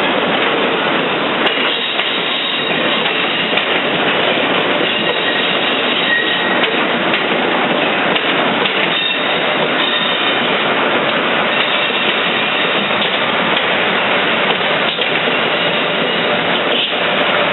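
Passenger train rolling past, a loud steady rush of wheels and cars on the rails with faint high wheel squeal coming and going.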